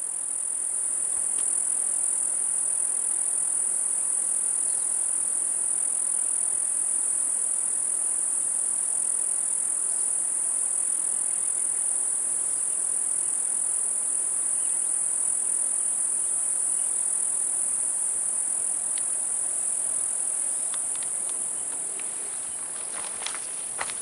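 Steady, high-pitched chorus of insects droning without a break. A few light clicks and snaps come near the end.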